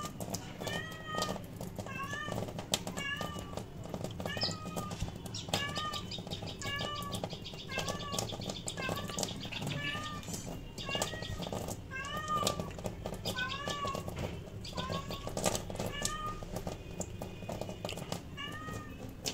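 A cat meowing over and over, short calls about once a second, with sharp clicks and knocks from a knife cutting pabda fish.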